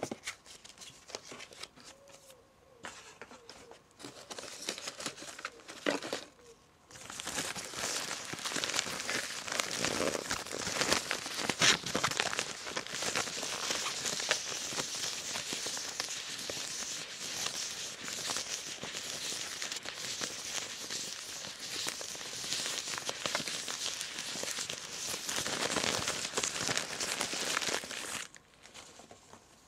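Paper packaging being crinkled and crumpled by hand. It is soft and sparse for the first several seconds, then dense and continuous until shortly before the end.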